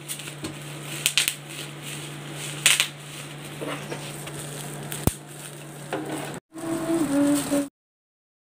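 Plastic bubble wrap crinkling and crackling as a child crumples it, with a few sharp snaps, over a steady low hum. The sound cuts off suddenly near the end.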